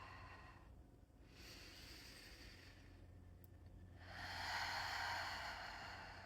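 Slow, audible breathing out. A breath fades away at the start, a faint one comes about a second and a half in, and a longer, stronger exhale swells about four seconds in and fades.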